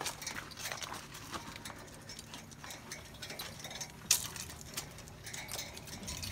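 A dog's claws clicking irregularly on a metal grated catwalk as it walks, with one louder sharp click about four seconds in.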